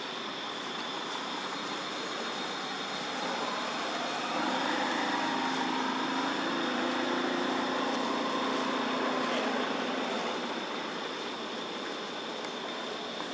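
A motor vehicle's engine passing by: it grows louder about four seconds in, holds for several seconds and fades near the end. Under it runs a steady hiss with a thin high hum.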